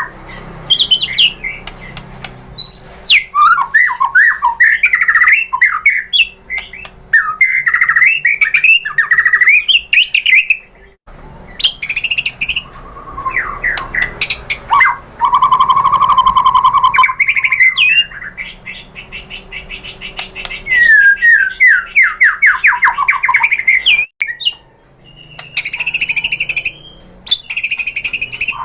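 White-rumped shama (murai batu) singing a loud, fast, varied song of sweeping whistles, chirps and rapid trills, broken by two short pauses. A lure song of the kind played to provoke other shamas into answering.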